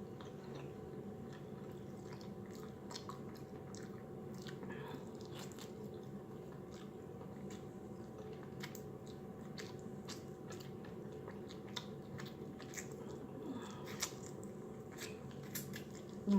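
A person biting and chewing honey buffalo chicken wings close to the microphone: faint chewing with many small, scattered mouth clicks.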